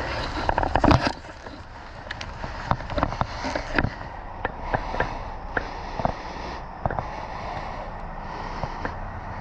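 Irregular sharp clicks and knocks, with a louder scuffling burst in the first second.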